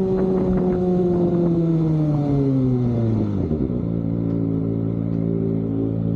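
Kawasaki ZX-25R's inline-four engine through an aftermarket Austin Racing exhaust, its note falling steadily over about three seconds as the revs drop, with a few pops as it begins to slow, then running steadily at low revs.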